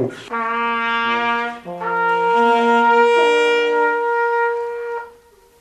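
Brass instruments playing a few held chords together, the notes changing several times before stopping about five seconds in.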